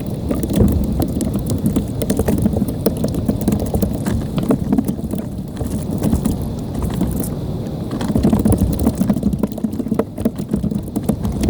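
Wind buffeting the microphone: a steady low rumble with many small crackles.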